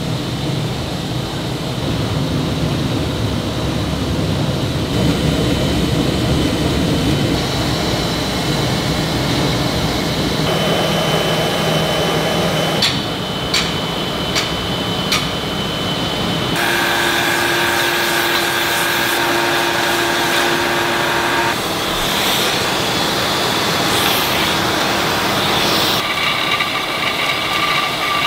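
Artificial-turf yarn production machinery running steadily: belt-driven pulleys, steam-heated drawing rollers and a winder spooling green monofilament yarn, each with its own steady hum and high whine that changes abruptly from one machine to the next. A few sharp clicks come about halfway through.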